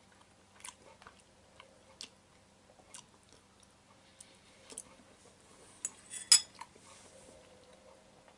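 Scattered light clicks and taps, then about six seconds in a short, louder clatter of a metal fork being set into a bowl on a steel tray.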